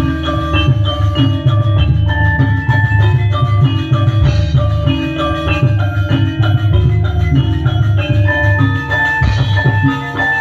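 Live Javanese kuda lumping gamelan music: a metal-keyed saron-type metallophone ringing out a stepping melody over a dense, loud drum beat.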